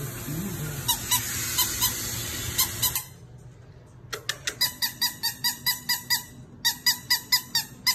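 A squeaky dog toy squeezed over and over in quick, even bursts of about three to four squeaks a second. For the first three seconds a steady hiss runs under it, then stops suddenly.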